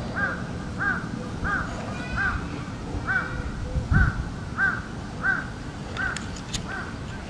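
A crow cawing in a long, even series: about ten short, arched caws, roughly one every two-thirds of a second. A dull thump sounds about four seconds in.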